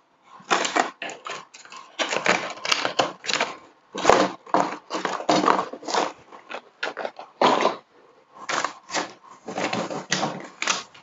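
Clear plastic blister packaging and small cardboard boxes being handled and packed into a carton: irregular crinkling, rustling and light knocks, coming in quick bursts.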